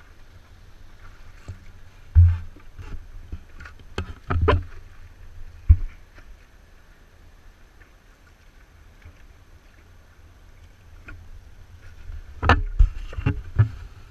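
Stand-up paddleboard paddle strokes in the water, with splashes and sudden knocks heard close up from a camera on the paddle shaft. A few loud knocks come about two seconds in and between four and six seconds in, then a quieter stretch and a cluster of knocks and splashes near the end.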